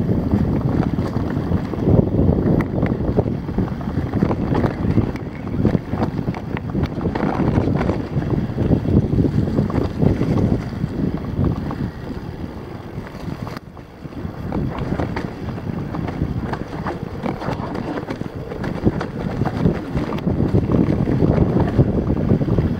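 Wind buffeting the microphone of a chest-mounted camera on a mountain bike going down a rough dirt trail, with the clatter and rattle of the bike and its tyres over stones and roots. It eases briefly about two-thirds of the way through, then picks up again.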